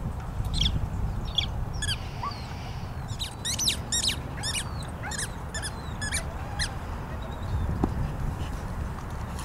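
A bird calling in a quick series of short, downward-sweeping chirps, fastest in a run through the middle, over a low rumble.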